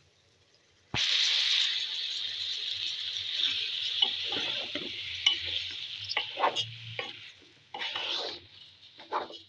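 Rice, lentils and vegetables sizzling in a frying pot, the hiss starting suddenly about a second in and slowly fading. From midway, a spatula stirs through the rice with irregular scraping strokes.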